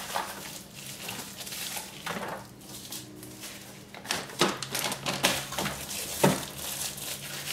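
Packaging being rustled and handled during unboxing, with scattered clicks and a few sharper knocks about four and a half, five and six seconds in.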